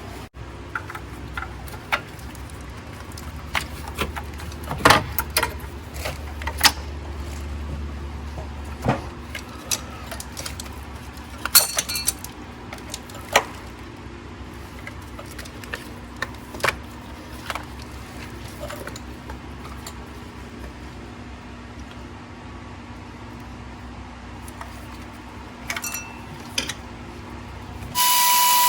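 Hand tools and metal engine parts clinking and clicking at irregular intervals over a steady low hum, as a diesel engine's top end is taken apart. Near the end a power tool starts with a steady high whine.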